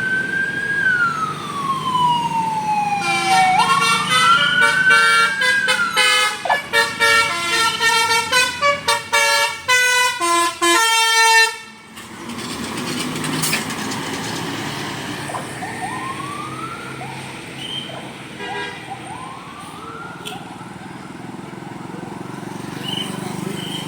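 A bus's telolet basuri multi-trumpet musical horn playing: first a siren-like wail that falls and rises again, then a rapid tune of stepped horn notes that stops abruptly. Road traffic noise follows, with a few fainter short rising whoops.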